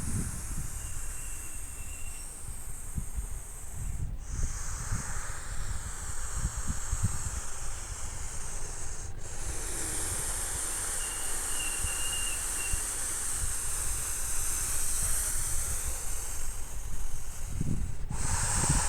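Toy F-16 fighter jet playing its jet-engine sound effect: a steady high hiss with low rumbling beneath, cutting out briefly about 4, 9 and 18 seconds in.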